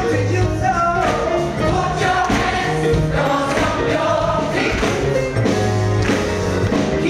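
A large gospel choir singing with a live band of grand piano, drums, bass guitar and keyboard.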